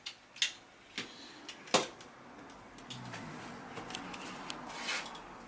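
A few light knocks and clicks, the loudest a little under two seconds in, with soft rustling between them, as things are handled in a small room.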